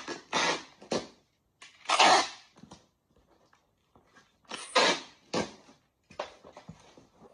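Clear packing tape being pulled off the roll of a handheld tape dispenser in several short bursts and pressed onto a cardboard box, with hands rubbing it down against the cardboard.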